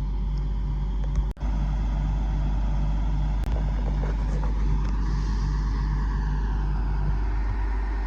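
Diesel engine of a self-loading logging truck running steadily, driving the hydraulic loader as it lifts the trailer, with a low throb pulsing about twice a second. The sound cuts out briefly about a second and a half in.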